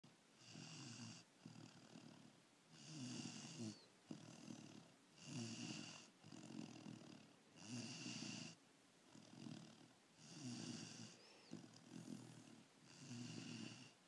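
A sleeping black Labrador puppy snoring softly, in a steady rhythm of about six snoring breaths, one every two and a half seconds, each followed by a quieter breath.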